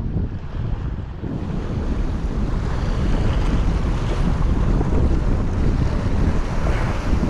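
Wind buffeting the microphone in a loud low rumble, over the wash of sea waves.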